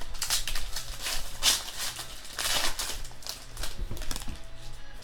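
Trading cards and their plastic sleeves and wrappers being handled: several short sliding, rustling swishes, the strongest at about one and a half and two and a half seconds.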